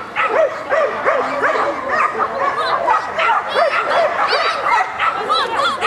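Several dogs barking and yipping, with many short, high calls overlapping each other several times a second.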